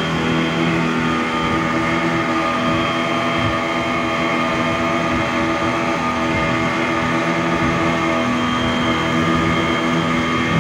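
Twin Yamaha 40 outboard motors running steadily at speed, mixed with the rushing of wake and spray against the hull.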